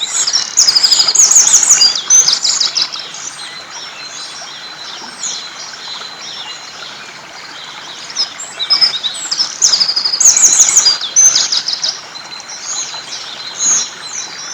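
A songbird singing two loud phrases of rapid, trilled high notes about eight seconds apart, with scattered quieter chirps between. Under it runs the steady rush of a river.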